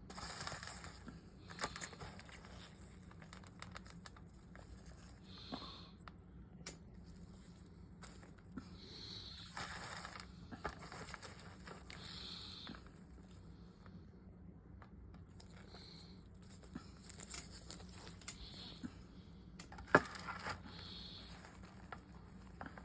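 Handling noises: scattered light clicks, taps and rustling, with one sharp click about twenty seconds in.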